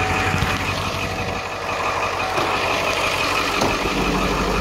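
Ford 7.3 L Power Stroke V8 turbo diesel idling steadily just after a cold start at 24 °F, its low hum growing a little stronger near the end.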